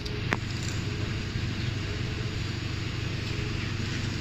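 Car engine idling steadily, with a couple of sharp clicks near the start.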